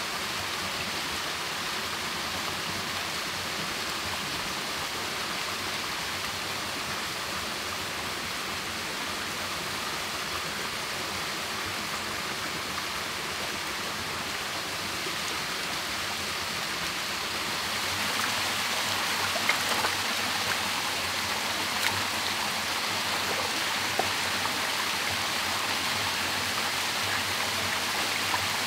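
Steady rush of a small waterfall and shallow stream running over rocks. About two-thirds of the way through it gets louder, with a few light knocks.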